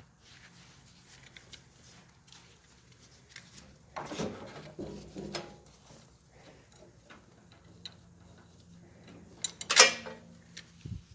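Scattered knocks and clicks of things being handled, with a cluster of knocks about four seconds in and one loud metallic-sounding clank near the end.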